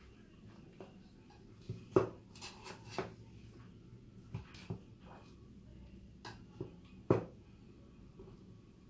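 A knife knocking and clicking against a plastic food container as a soft layered dessert is cut into portions: a scattering of separate knocks, the loudest about two seconds in and again about seven seconds in.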